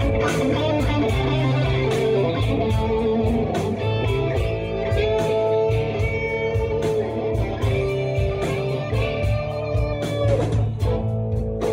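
Hard rock recording: an electric guitar plays sustained, wavering lead notes over a steady bass and drum beat.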